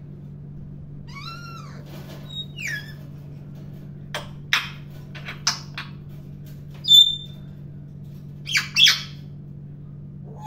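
African grey parrot vocalising: a rising-and-falling whistle about a second in, then a falling whistle and a run of short clicking squawks. Near the end comes a loud, sharp whistle, followed by two loud harsh squawks.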